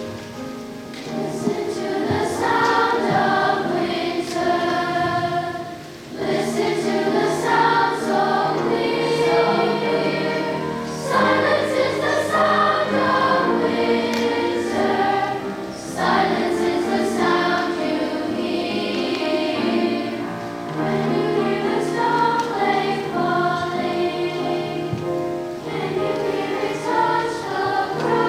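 Sixth-grade children's chorus singing together in phrases, with short breaths between lines.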